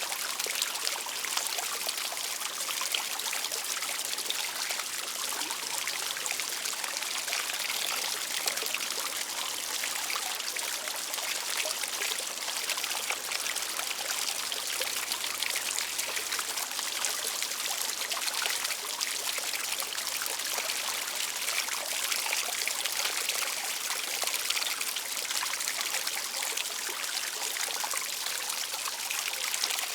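Outdoor fountain: water falling and splashing steadily into a basin, a continuous trickling and pouring.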